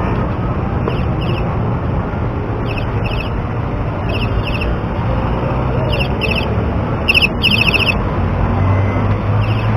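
High, quick chirps in pairs, a pair every second or so, each chirp a rapid trill, over steady outdoor street and crowd noise.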